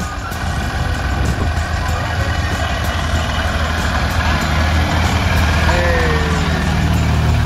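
Engine of a small vintage Honda hatchback running as the car rolls slowly past at low speed, a steady low drone that grows louder toward the end.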